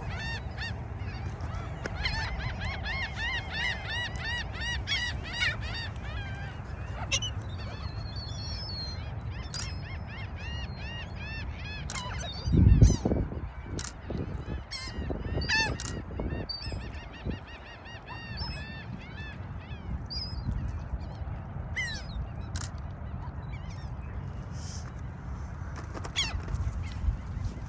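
A flock of gulls calling: many overlapping short calls, often in quick series, over a steady low rumble. About halfway through there is a brief, louder low rumble.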